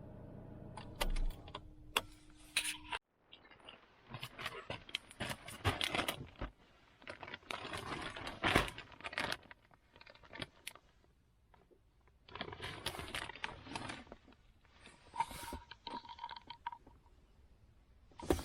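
Irregular clicking, rattling and scraping of hard objects being handled, after a steady low hum that cuts off suddenly about three seconds in.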